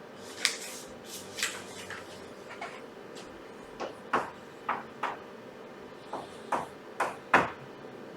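About a dozen light, irregularly spaced taps and clicks, the loudest near the end, over a low steady room hum.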